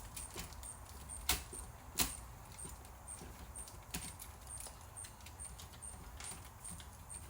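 Scattered light clicks and taps of a screwdriver on the plastic and metal parts of a VCR being taken apart, with sharper clicks about one and two seconds in and another around four seconds.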